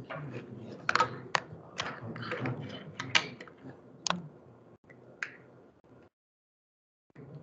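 Irregular sharp clicks and knocks over a low rumbling background, stopping about five seconds in, after which the sound cuts out.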